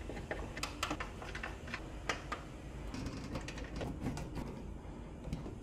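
Light, irregular clicks and ticks of a hand screwdriver driving a screw into a steel circuit breaker panel cover, with the metal cover being handled as it is fitted.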